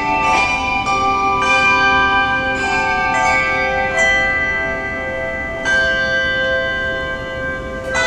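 Large handbell choir ringing chords: many bronze handbells struck together every second or so, each chord ringing on under the next. It is softer for a few seconds near the end, before a new chord is struck.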